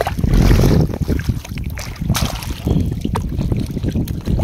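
Water sloshing and bubbling around a woven basket of freshly caught fish as it is dipped into shallow water, with a heavy, uneven low rumble of wind or handling on the microphone that is loudest in the first second.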